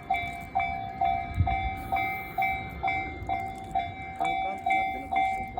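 Japanese railway level-crossing warning bell ringing, an electronic 'kan-kan' clang struck evenly a little over twice a second, each strike fading before the next, over a low rumble.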